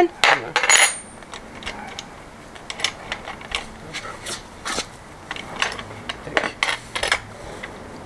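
Small metal hand tools and bicycle fork parts clicking and clinking as they are handled during assembly: scattered short clicks, with one ringing metallic clink just under a second in.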